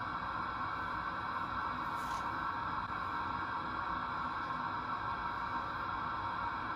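Steady TV-static hiss, an even rushing noise strongest in the middle range, with a few faint steady tones beneath it.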